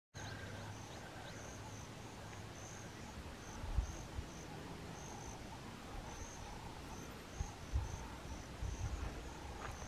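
Insects chirping in the grass: short, high chirps repeating about three times a second. A few low thumps come in about four seconds in, near eight seconds and toward the end.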